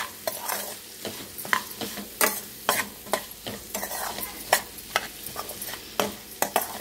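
A metal spoon stirring and scraping sliced onions, chillies and spices frying in oil in a kadai. Irregular scrapes and knocks of the spoon against the pan ride over a steady sizzle.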